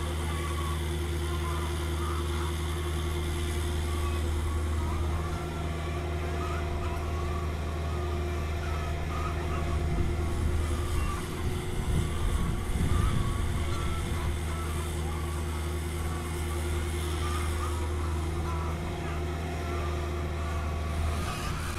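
Cat 305.5E2 mini excavator's diesel engine running steadily while the machine digs and dumps dirt. About halfway through, the sound turns louder and rougher for a few seconds.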